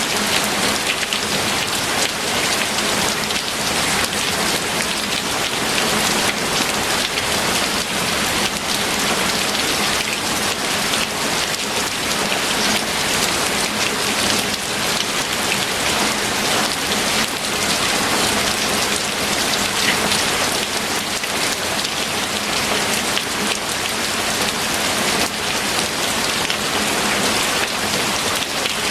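Steady rain falling, a dense even hiss with fine patter of drops.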